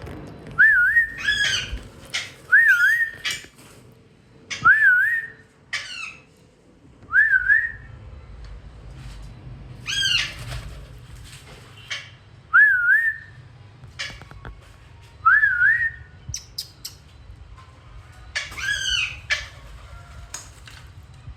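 Parrots calling: a short whistled call that swoops up is repeated about every two to three seconds, and a few harsher, screechier calls are mixed in.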